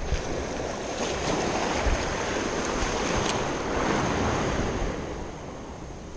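Small waves washing in shallow seawater, with wind buffeting the microphone. The wash swells and then eases off about five seconds in.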